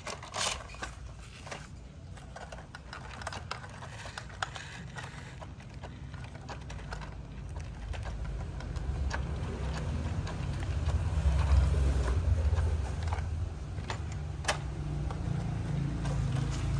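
Small electric motor and plastic gearbox of a toy RC car whirring as it drives over packed dirt and grit, with a few faint clicks. It grows louder through the middle.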